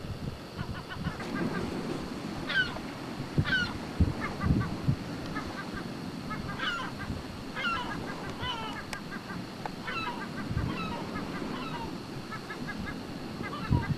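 A flock of birds calling over and over: many short calls, some of them falling in pitch, with a few low thumps underneath.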